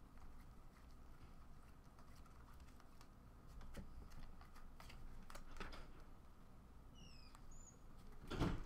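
Chromium trading cards being flipped and slid one behind another in the hands, with faint scattered clicks and rustles of card stock. Near the end comes a louder short crinkle as a torn foil pack wrapper is handled.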